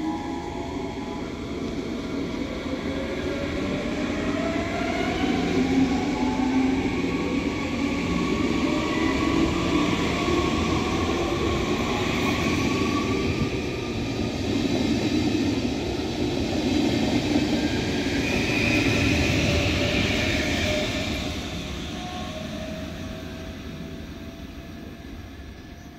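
Electric regional train of double-deck coaches running past. Over the first few seconds a whine rises in pitch as it gathers speed. The rumble of wheels and coaches is loudest as the cars go by, then fades as the train draws away.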